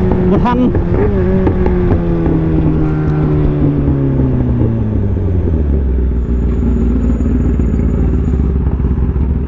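Kawasaki ZX-10R's inline-four engine winding down as the motorcycle slows, its pitch falling steadily over about five seconds, then settling into a low, steady idle.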